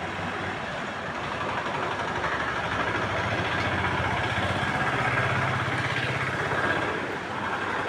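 A motor vehicle's engine running steadily, growing louder toward the middle and easing off near the end.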